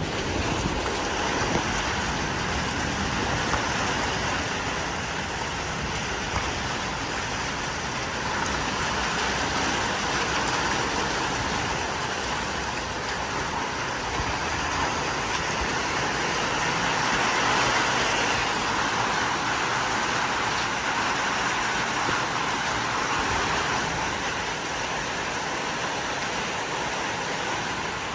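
Heavy thunderstorm rain and strong wind gusts: a loud, dense hiss that swells and eases slowly, loudest a little past halfway.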